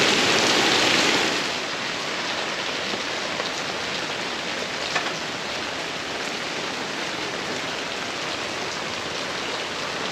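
Steady rain falling on wet ground and puddles. It is louder for the first second and a half, then settles into a softer, even fall, with one light tap about five seconds in.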